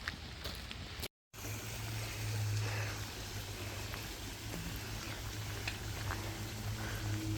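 Outdoor ambience: a steady rushing noise with a low hum under it. It breaks off in a short dropout to silence about a second in, then resumes.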